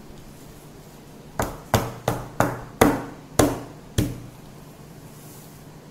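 A metal cake tin full of batter is knocked down on a table seven times in quick succession, about three a second, each knock with a short metallic ring. Tapping the tin settles the batter before baking.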